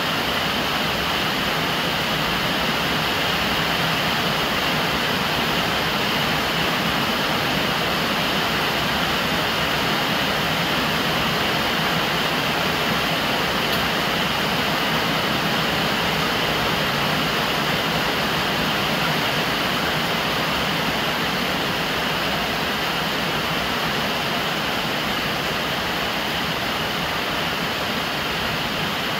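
Steady rain, with a stream of rainwater pouring from a plastic downpipe and splashing onto the lid of a large water-storage jar: an even, unbroken rushing and splashing.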